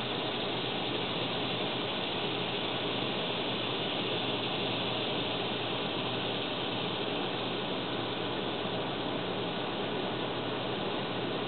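Steady, even hiss of background noise at a constant level, with no distinct sounds standing out.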